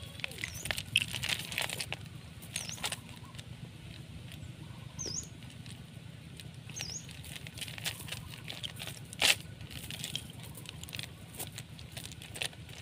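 Mesh fishing net rustling and clicking in irregular little bursts as it is handled and picked through by hand, with one sharper click about nine seconds in. Four short high chirps come within the first seven seconds.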